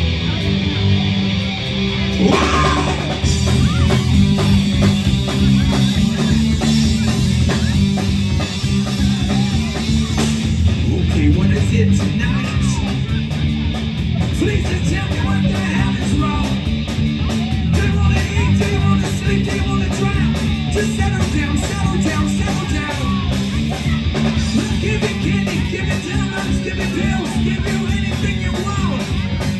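Rock band playing live: electric guitars, bass and drum kit, with a steady beat.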